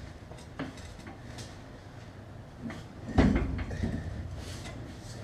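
Clunks and knocks of heavy metal suspension parts being handled and bumped, with a louder thump and rattle about three seconds in.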